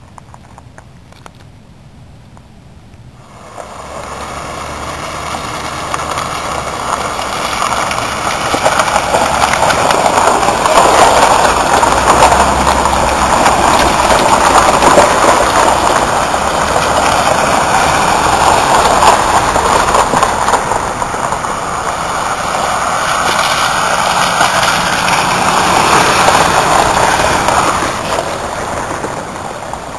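A vehicle driving through deep floodwater on the road: engine running under a loud rushing wash of water that comes in about four seconds in, holds through the middle, and eases off near the end.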